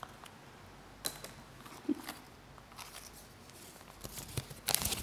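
A small folded paper slip being handled and unfolded close to a microphone: scattered short rustles and crinkles, with a louder burst of crinkling near the end.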